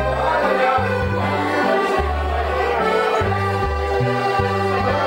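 Accordion playing a lively dance tune, chords held over a bass line that changes note every half second or so.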